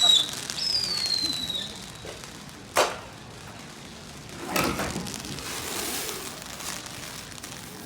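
Consumer fireworks going off: a whistle falling in pitch in the first second or so, then a sharp crack nearly three seconds in and a crackling burst around four and a half seconds, over a steady hiss.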